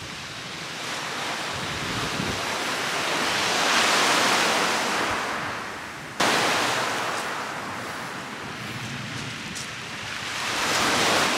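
Small waves breaking and washing over a shingle beach, the surf swelling and falling away twice, with wind buffeting the microphone. The level jumps abruptly about six seconds in.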